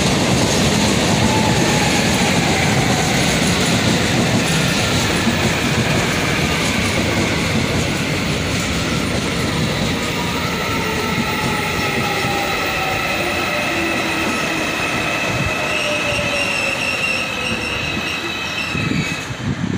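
Korail Line 1 'Cube' electric multiple unit entering a station and rolling past: a steady rumble of wheels on rail with rail-joint clatter. An electric whine falls slowly in pitch as the train brakes. A high wheel squeal comes in near the end.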